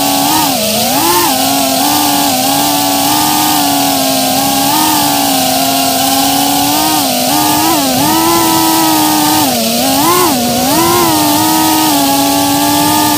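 A 3-inch FPV quadcopter's brushless motors and propellers whining loudly. The pitch swoops up and dips again every few seconds as the throttle changes, with steady propeller hiss underneath.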